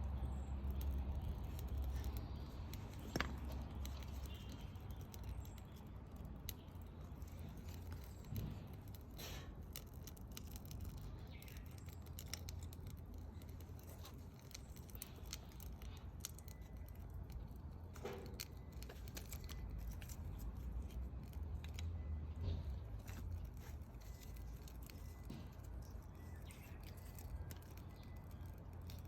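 Wood fire crackling, with sparse, irregular pops and snaps over a low steady rumble; the sharpest pop comes about three seconds in.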